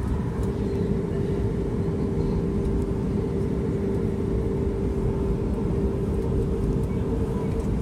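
Inside the cabin of a Boeing 737 MAX 8 taxiing: steady rumble of its CFM LEAP-1B engines at low thrust, with a constant hum.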